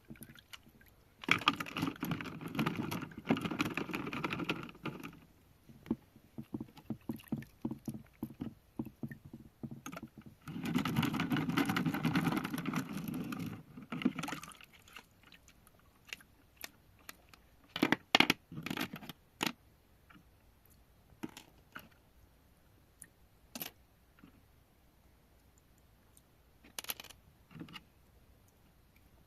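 Handling noises from work on a small plastic toy phone: two stretches of rubbing or scraping a few seconds each, then scattered clicks and taps, the sharpest a cluster of clicks about two-thirds of the way through.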